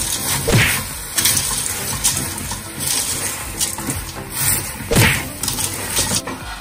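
Wooden spoon stirring shoestring potato sticks and salt cod in a stainless steel pot: a rough, crunchy rustling with repeated scrapes, the loudest about half a second in and about five seconds in.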